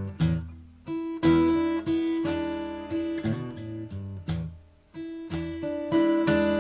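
Acoustic guitar playing a tune, plucked notes left to ring and die away, with two brief breaks in the playing.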